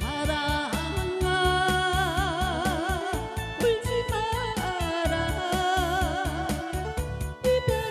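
A woman singing a Korean trot song over a backing band with a steady beat, holding long notes with a wide vibrato.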